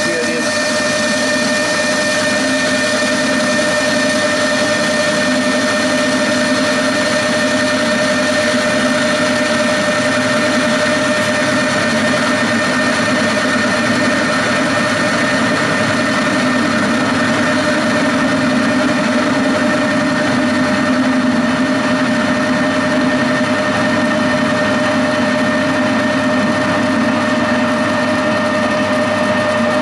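Metal lathe running under power, taking a facing cut across the end of a 303 stainless steel bar. A steady machine hum and whine carries the hiss of the cut, unchanged throughout.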